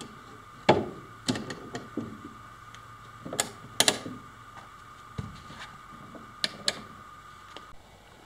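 Metal bar clamps being adjusted and tightened on a plywood panel: about a dozen irregular sharp clicks and knocks, the loudest about a second in. A faint steady high hum sits underneath and stops just before the end.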